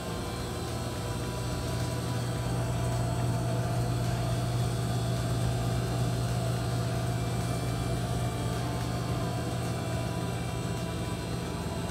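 Steady low electrical hum of a glass-door drinks cooler's refrigeration unit running.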